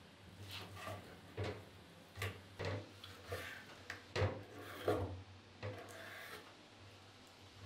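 Large kitchen knife cutting raw beef tripe on a wooden cutting board: a string of irregular short cuts and knocks of the blade on the wood, with scraping between them, stopping about six and a half seconds in.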